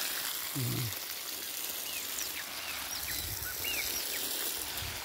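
A steady hiss, with a small bird giving several short, quick chirps in the middle. A brief low voice sound comes near the start.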